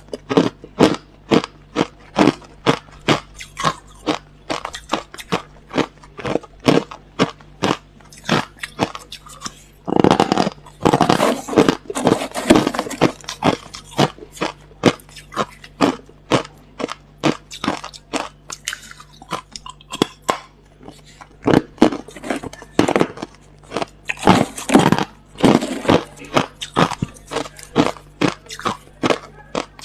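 A person chewing hard, clear crushed ice: a steady run of sharp crunches, about two to three a second, with two longer stretches of dense crunching.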